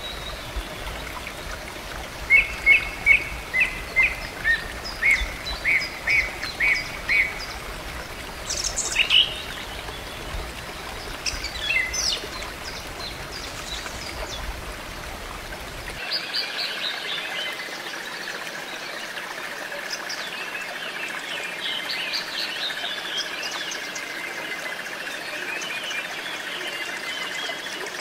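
Songbirds calling over a steady background hiss. A quick run of about a dozen short, even chirps starts about two seconds in, then come a few scattered calls. From about sixteen seconds a fuller, busier chorus of birdsong sets in.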